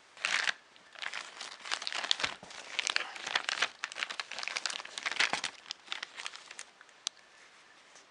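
Clear plastic parts bag crinkling and rustling as it is handled, in irregular bursts that die away about two-thirds of the way through.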